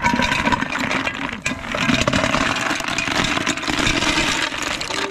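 Land snails in their shells poured from a sack into a metal cooking pot and stirred, the shells clattering steadily against each other and the pot.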